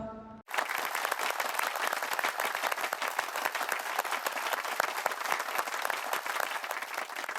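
Applause: many hands clapping, starting abruptly about half a second in and going on steadily.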